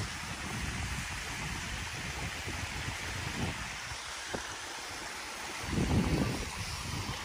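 Steady rushing of water from the waterfall and the shallow creek below it, mixed with wind buffeting the microphone; a louder low rumble about six seconds in.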